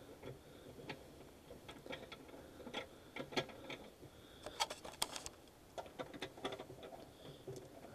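Irregular metallic clicks and taps of brass gas fittings being handled and screwed onto the valve of a refillable LPG bottle, with a cluster of louder clicks about halfway through.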